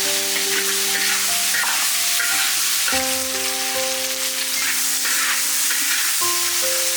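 Food sizzling in a hot pan as it is stirred, a steady hiss with small crackles, under soft background music of long held notes that change chords about every three seconds.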